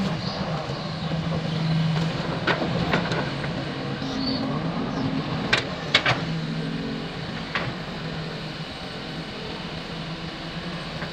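Excavator's diesel engine running, its pitch shifting a little, with several sharp knocks in the middle.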